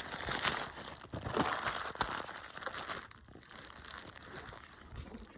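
Pocket fabric rustling and crackling against the microphone of a camera carried in a pocket, louder for the first three seconds and quieter after.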